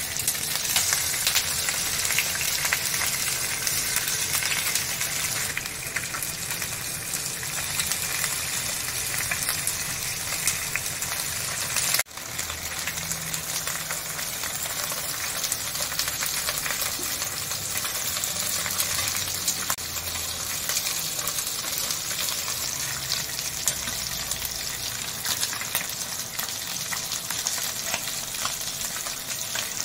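Food sizzling and crackling as it fries in a pan, with a sudden break about twelve seconds in.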